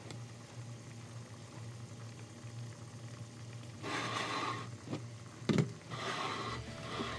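Meatballs simmering in liquid in an uncovered nonstick pan, with bubbling that comes in short noisy spells over a steady low hum. One sharp knock is heard about five and a half seconds in.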